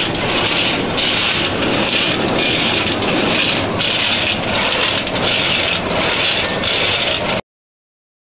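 Motorised cashew cutter machine running, a dense clattering noise with a regular beat about twice a second as its cutting mechanism cycles; the sound cuts off abruptly about seven seconds in.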